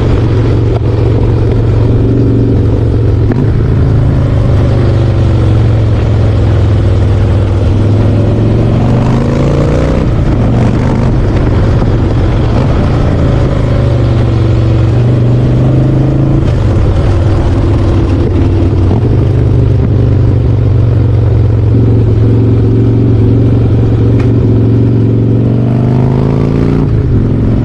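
Harley-Davidson Softail Slim's V-twin engine and exhaust running under way. The engine speed dips and climbs again a few times, with a longer rise near the end.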